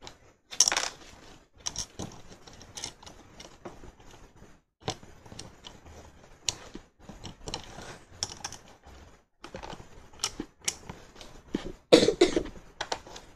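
Plastic construction bricks clicking and clattering as they are handled and pressed together, in many short irregular clicks, with a louder burst near the end.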